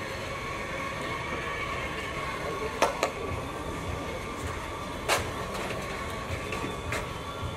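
Sharp knocks and clinks of equipment being handled at a commercial espresso machine, two close together about three seconds in and another about five seconds in, over a steady mechanical hum.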